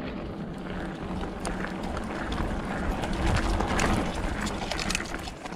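Mountain bike, a 2021 Polygon Siskiu N7, being ridden over a dirt trail: steady tyre and wind noise with many small clicks and rattles from the bike, a little louder around the middle.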